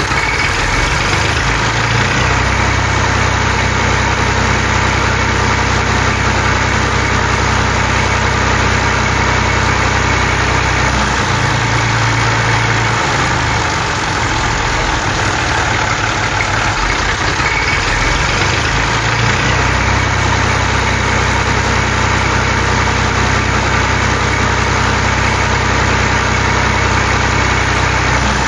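Tractor-type engine idling steadily, with a low, even running note that shifts slightly twice.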